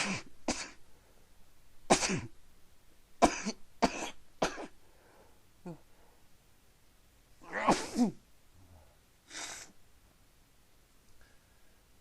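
A person sneezing into a handkerchief: a string of about eight short, sharp sneezes with quiet pauses between them.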